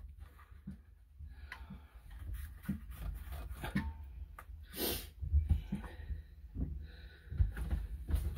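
Scattered small clicks, knocks and rubbing as hands work on the rubber cooling hoses and plastic parts in a Sea-Doo's engine bay, with a brief louder scraping rub about five seconds in.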